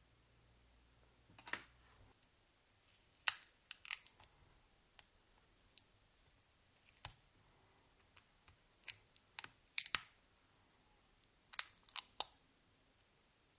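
Irregular sharp clicks and taps of small plastic mobile-phone parts being handled, about twenty in all, some coming in quick clusters of two or three.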